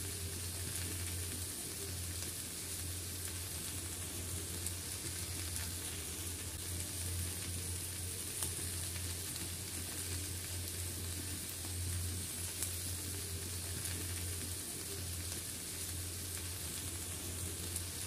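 Steady sizzle of food frying in oil, with a few faint pops, over a low steady hum.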